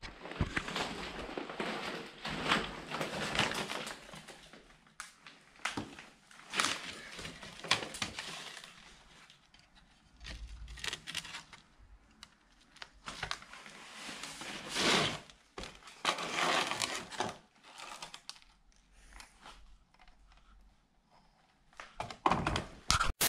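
Loose old paper sheets rustling and crinkling as they are handled and shuffled, with scattered knocks and clatters of things being picked up, including a tape reel and its box. The sounds come in irregular spurts with quiet gaps between them.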